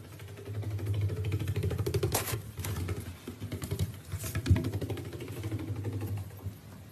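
A hedgehog's feet pattering fast on a wooden floor as it chases a laser-pointer dot, a dense run of small ticks. Two louder knocks come about two and four and a half seconds in.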